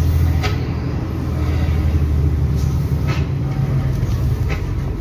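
Mercedes-Benz 1620 truck's diesel engine running under way, heard from inside the cab as a steady low hum, with a few short clicks.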